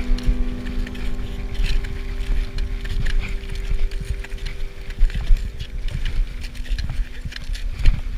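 Gusty wind rumbling on the microphone, with scattered crunches and clicks, under a held music chord that slowly fades out.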